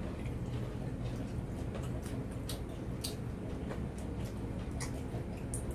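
People eating with their hands: irregular small clicks and smacks of chewing and of fingers and bones against glass plates, over a steady low hum.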